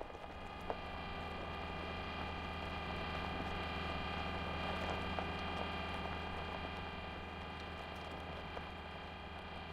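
Sound-effect hum of the Mars rover Curiosity's electric motors as it drives, a steady drone of several held tones that swells over the first second, with faint scattered clicks throughout.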